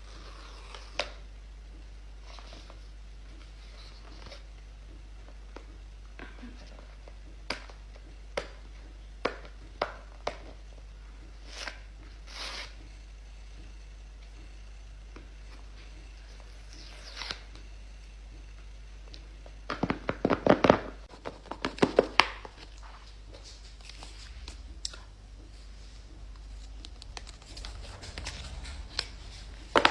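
Phone box packaging being handled and torn open: scattered crinkles, tears and small clicks, with a run of sharp rapid rustles and clicks about two-thirds of the way through.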